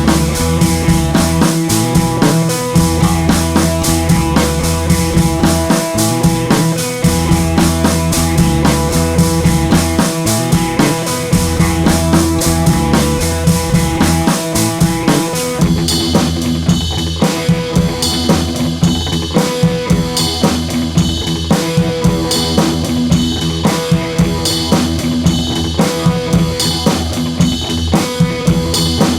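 Background music with a steady drum-kit beat. It turns sparser and more drum-led about halfway through.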